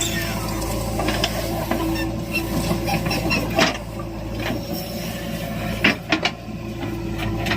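Diesel engine of heavy earth-moving machinery running steadily, with sharp metallic knocks and clanks at irregular moments, a cluster of them about six seconds in.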